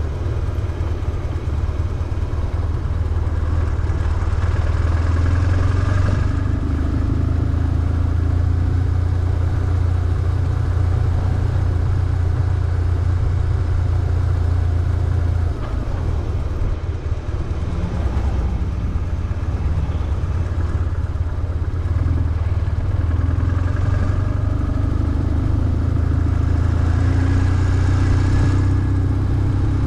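BMW R1150GS flat-twin boxer engine running while the motorcycle is ridden, pulling steadily. About halfway through it eases off for several seconds, then pulls again.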